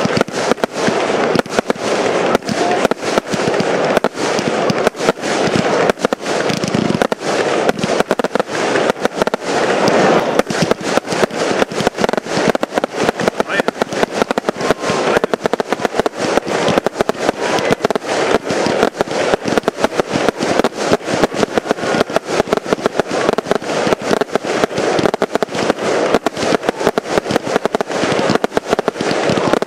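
Fireworks batteries firing a continuous barrage: a dense, rapid stream of bangs, many each second, launches and bursts overlapping without a pause.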